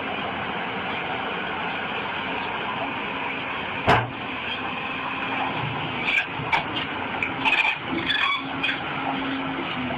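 Tracked excavator's engine running steadily, with one sharp loud knock about four seconds in and a string of shorter clanks a couple of seconds later as the machine moves over the rubble.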